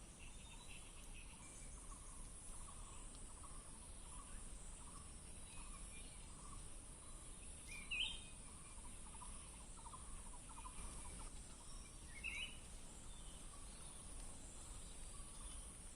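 Faint outdoor ambience: a steady high insect drone with scattered soft bird chirps, and two short, sharp rising bird calls about eight and twelve seconds in.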